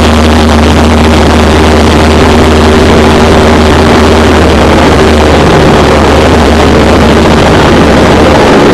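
Single-engine light airplane's piston engine and propeller droning steadily, heard from inside the cockpit, with a broad rushing noise over it. Near the end the lowest hum drops away and the tones shift.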